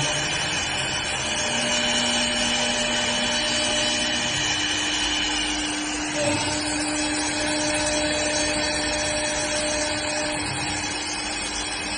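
CNC wood turning lathe running, working a wooden blank: a steady machine noise with held motor tones that shift as the tools change, and a short knock about six seconds in.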